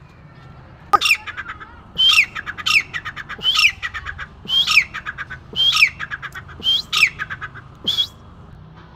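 Grey francolin (desi teetar) giving its loud territorial call: a run of about eight harsh calls, roughly one a second, each a sharp falling note followed by a quick stutter of short notes.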